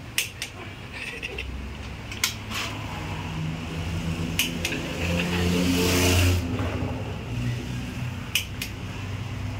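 Click-type torque wrench clicking, mostly in pairs, as the cylinder head nuts of a motorcycle engine are tightened. Underneath runs a steady engine hum that swells in the middle, with a short hiss at its loudest point.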